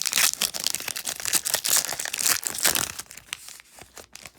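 Foil wrapper of a Pokémon booster pack crinkling and tearing as it is opened by hand: dense crackling for about three seconds, thinning to a few light rustles near the end.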